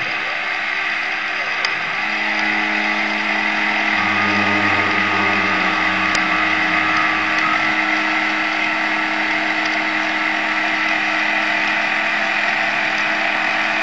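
Home-built CNC spindle made from a brushless motor, running a 40 mm straight cutter as it flattens the router table's board: a steady high whine mixed with the hiss of cutting. A lower hum joins about two seconds in and the sound grows slightly louder.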